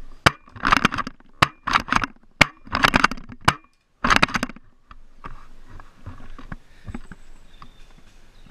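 Airsoft gun firing a string of short bursts and single sharp cracks through the first four seconds. After that come softer scattered clicks and rustling of movement.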